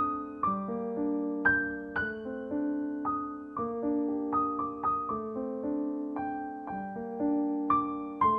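Background music: a piano playing a slow melody, one note about every half second over held chords.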